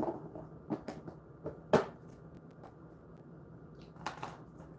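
Clear plastic treat tub and the treats inside being handled: a run of sharp plastic clicks and rattles in the first two seconds, the loudest near the middle, then a short rustle near the end.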